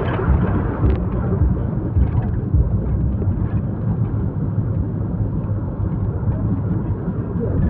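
Steady low rumble of a vehicle driving on the road, heard from inside the cabin: engine and tyre noise.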